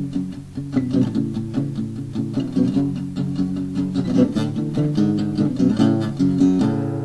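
Instrumental guitar outro of a rock song: quick picked guitar notes, ending near the end on a held chord left to ring.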